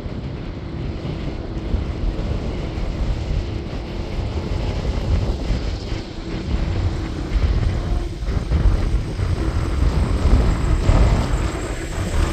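Jet engines of an easyJet Airbus A320-family airliner running as it rolls along the runway: a steady low rumble that grows louder past the middle.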